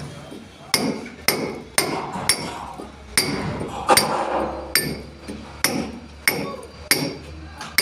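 Hammer blows on a steel chisel cutting a groove for electrical conduit into a brick wall: sharp strikes about every half to three quarters of a second, each with a short metallic ring, and brick crumbling between them.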